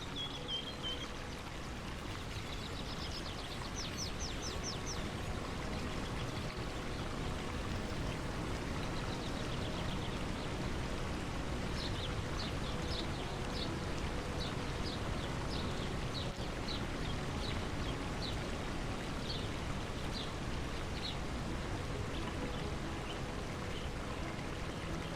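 A stream runs steadily, with a bird chirping over it: a quick run of high chirps a few seconds in, then repeated short high chirps for about ten seconds in the middle.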